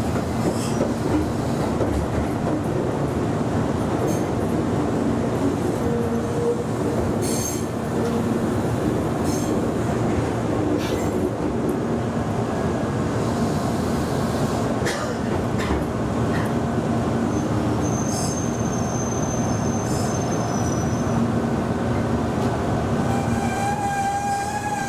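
Meitetsu electric commuter train running on the rails, a steady rumble with occasional clicks from the wheels and track. About three quarters of the way through, a thin high wheel squeal rings for a few seconds, and near the end a steady tone rises over the rumble.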